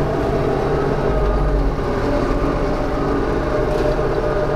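Ursus 3502 tractor engine running steadily under load, driving a mower that shreds pruned orchard branches.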